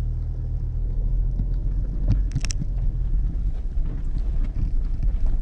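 A steady low rumble, with a few light clicks about two and a half seconds in.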